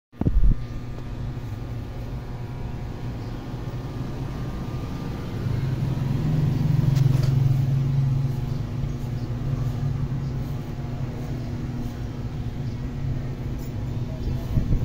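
A steady low motor hum that swells louder for a few seconds in the middle.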